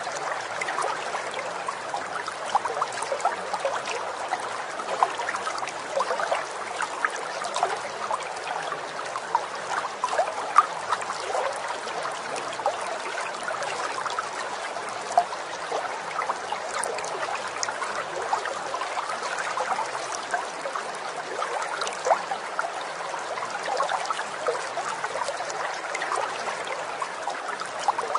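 Water trickling and babbling steadily like a small stream, with many small quick splashes.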